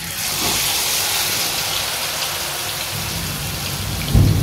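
Hot oil sizzling hard as a batter-coated spiral potato on a skewer is deep-fried, a steady bubbling hiss. A louder low rumble joins near the end.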